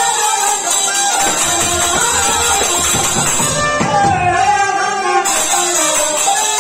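Shehnais playing a devotional kirtan melody with gliding, ornamented notes over a harmonium.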